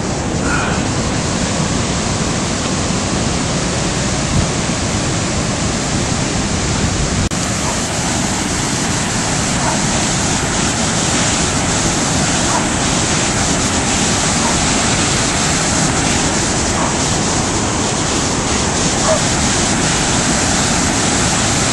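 Flood-swollen river rushing steadily: a continuous, loud wash of fast-moving water.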